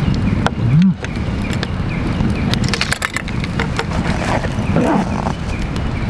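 Wood campfire burning, with sharp crackles and pops over a steady low rumble. Birds chirp faintly in the background, and a short low rising sound comes just before a second in.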